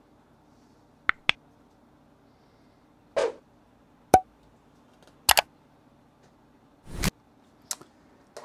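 Handling noise while slices of cured coppa are laid by hand onto a pizza from a plastic board: a few sharp clicks and taps, several in quick pairs, and two brief rustles, over a faint room hum.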